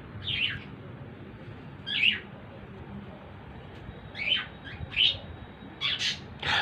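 Budgerigars chirping: a string of short, falling chirps with pauses of a second or two between them.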